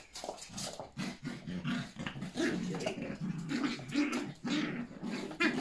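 Yorkshire Terriers, puppies and their mother, play-growling in short repeated bursts as they tussle, starting about a second in.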